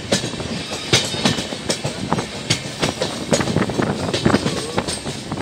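Passenger train coaches running along the track, heard from an open window of the moving train: a steady rumble of wheels on rail with frequent irregular clicks and knocks as the wheels clatter over the track.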